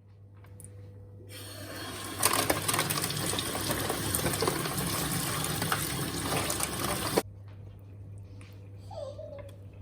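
Water running from a tap: it starts about a second in, grows stronger a second later, and is shut off abruptly after about six seconds.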